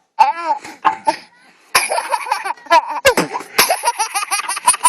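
A baby laughing in bursts of chopped, high-pitched giggles, with a short lull about a second in before the laughter picks up again.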